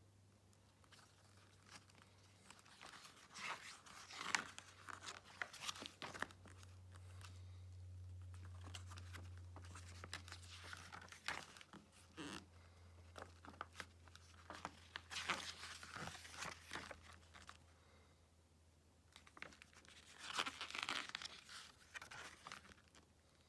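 Box set packaging being handled: crinkling and tearing rustles in four bursts, over a faint steady low hum.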